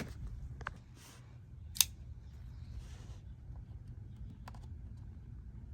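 A few scattered light clicks and taps of small hardware being handled while the ditch lights are mounted on their brackets, over a steady low hum. The sharpest click comes a little under two seconds in.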